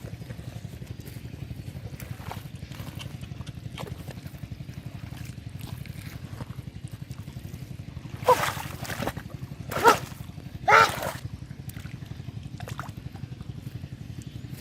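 Muddy water sloshing and dripping over a steady, rapidly pulsing low drone, with three short, loud vocal exclamations about eight to eleven seconds in.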